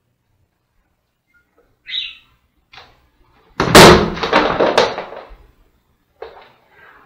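A thin screw in a plastic wall anchor in a concrete column snapping under a man's hanging body weight: a sudden loud crack about three and a half seconds in, followed by a clatter and scuffle of him dropping onto his feet. The screw was too thin for the load.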